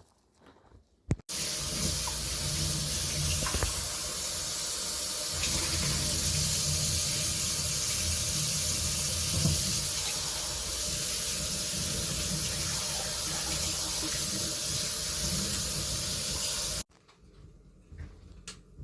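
Steady rush of running water that starts abruptly about a second in and cuts off suddenly near the end.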